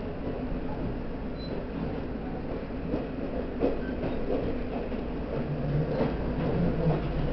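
Train rolling slowly through station trackwork: a steady rumble with a few clicks from the wheels crossing rail joints and points.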